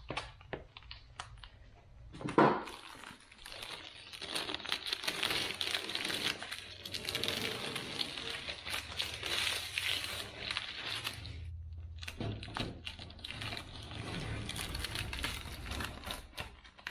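Blue painter's tape being peeled off a car's freshly spray-painted body panel and crumpled in the hand: a long run of crackling and crinkling, with one thump a couple of seconds in and a brief lull past the middle.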